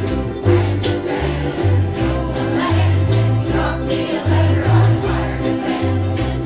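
Many ukuleles strummed together in a steady rhythm over a walking bass line, with a crowd singing along.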